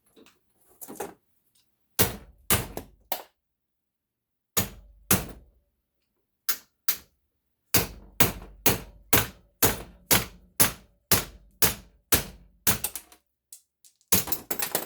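Hammer blows knocking aluminum off the copper of a water-heater valve assembly: sharp, hard strikes. A few come singly or in pairs, then a steady run of about two a second, then a quick flurry near the end.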